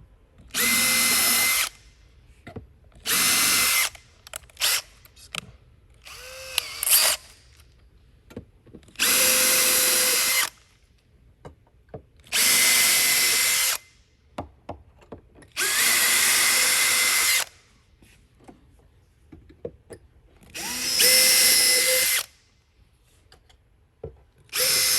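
Power drill boring shallow pilot holes into a laminate desktop's particle board core. It runs in about eight short bursts of a steady whine, one hole after another, each lasting a second or two with a short pause between them.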